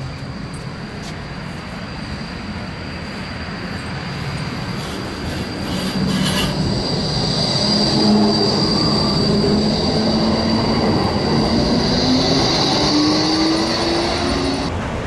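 Bombardier Flexity 2 low-floor tram running past on curved track, its wheels squealing in a steady high tone that grows louder as it comes close. Near the end a lower whine from its traction drive rises in pitch as the tram picks up speed.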